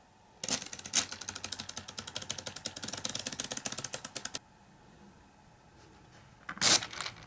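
The plastic gears and ratchet of a 3D-printed gyrotourbillon model clicking in a fast, even train for about four seconds as the mechanism is turned, stopping abruptly. Near the end comes a louder clatter and a few scattered clicks as the model is handled.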